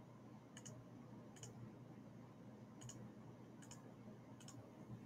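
A computer mouse clicking faintly about five times at uneven intervals, some clicks doubled, over a faint steady low hum.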